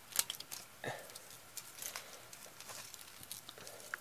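Faint, scattered clicks and taps from a plastic VHS tape reel being handled and turned in the hand.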